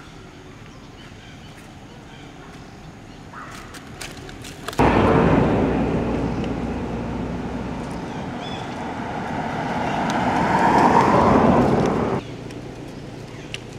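A vehicle passing on the road: a loud rushing noise that cuts in abruptly about five seconds in, eases off, swells again and stops sharply near the end.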